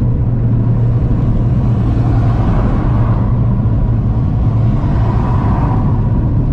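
Car engine and road noise while driving: a steady low drone under road hiss, with the hiss swelling twice, about two seconds in and again about five seconds in.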